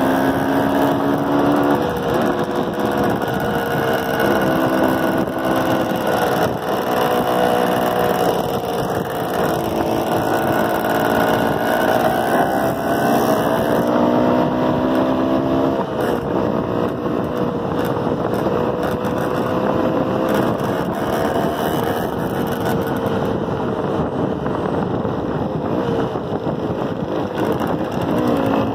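Motorcycle engines running at close range on a group ride, their pitch repeatedly rising and dipping with the throttle.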